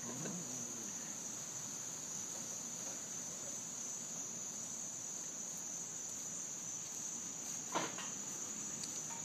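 Steady, high-pitched insect chorus, a continuous summer chirring. One short louder sound cuts in about eight seconds in.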